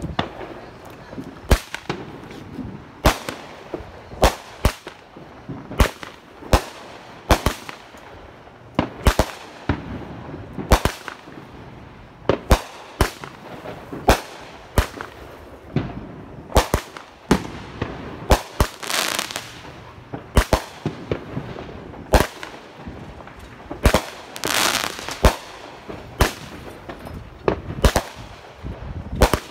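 A Brothers High Faultin' 500-gram consumer firework cake firing a string of aerial shots, about one sharp bang a second. Around two-thirds of the way through come a couple of longer, noisier bursts.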